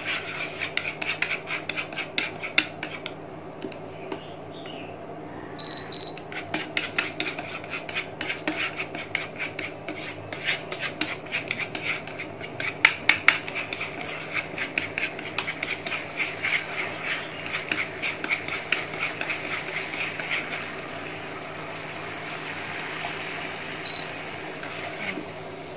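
Chopsticks stirring and scraping a thick chili-garlic sauce around a nonstick frying pan in a quick, rough rhythm, over a steady low hum from the induction cooktop. The cooktop beeps twice about six seconds in as its power is turned down, and once near the end as it is switched off.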